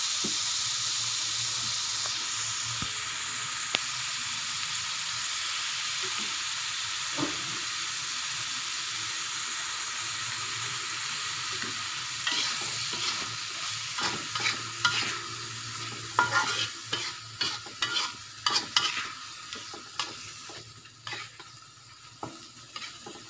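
Beef pieces and chili spice paste sizzling in a wok while a metal spatula stirs them. The sizzle slowly fades, and from about halfway through the spatula scrapes and clinks against the pan in quick, irregular strokes.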